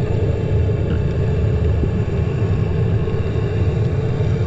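Steady muffled underwater rumble picked up through a waterproof action-camera housing while swimming, with a faint click about a second in.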